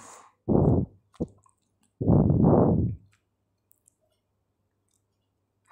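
Spatula scraping and pushing sliced onions around in a wok, in three short bursts: one about half a second in, a brief one after it, and a longer one at around two to three seconds. No steady sizzling is heard between the strokes.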